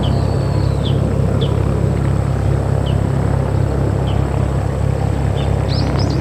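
A light propeller aircraft's piston engine running with a steady low rumble. Small birds chirp in short single notes about once a second, and a quick run of chirps comes near the end.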